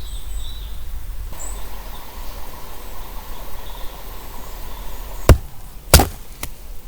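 Two sharp strikes of an axe splitting firewood, a little under a second apart near the end, over steady outdoor background noise.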